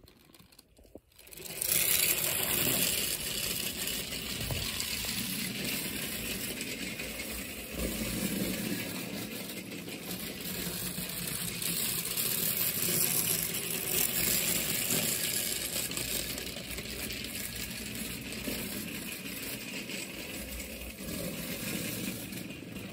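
Jeouf clockwork toy locomotive running on model railway track, starting about a second and a half in: the wound-up all-metal spring motor whirring and its wheels rattling along the rails, getting louder and softer as it moves round the layout.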